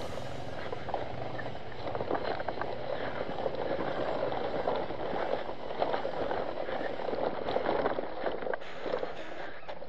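Trail motorcycle moving slowly over a rough, rocky track, its running noise steady, with frequent small rattles and knocks from the bike over the ground.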